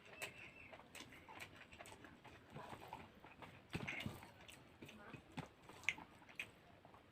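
A person chewing rice and fish curry, with irregular soft lip smacks and mouth clicks, a couple of sharper smacks about four and six seconds in.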